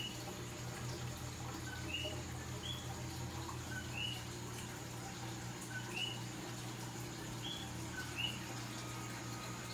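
Coquí frogs calling their two-note "co-qui": a short lower note and then a higher rising one, repeated every second or two. A steady low hum runs underneath.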